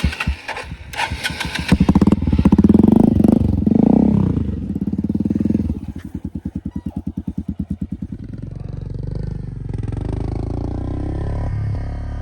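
Motorcycle engine revved hard with rising and falling pitch, then dropping to a slow, pulsing chug and settling into a steady run. A few sharp knocks come in the first two seconds.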